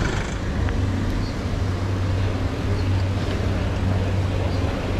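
Steady road-traffic noise mixed with wind noise, heard from a bicycle being ridden slowly through a city street junction.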